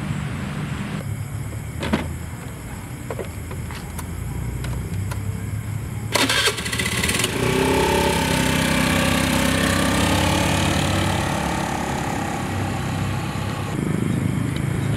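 Motor scooter engine starting with a brief burst of noise about six seconds in, then running and revving as the scooter rides along, pitch rising and falling. A few sharp clicks come before it.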